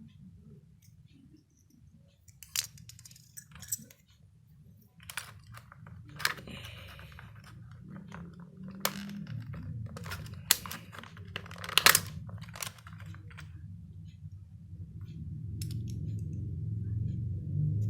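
Hard plastic keyboard parts being handled, giving irregular sharp clicks and clattering knocks, some loud and close together, over a low hum that grows louder near the end.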